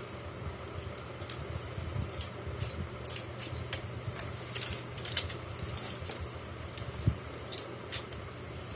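Items and packaging from an unboxed wicker basket set being handled: scattered light clicks and taps with brief rustling, over a steady low hum, with a sharper knock about seven seconds in.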